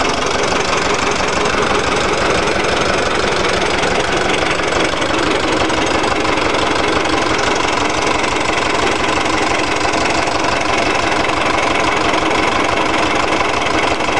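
Lister stationary diesel engine running steadily, with a rapid, even firing beat.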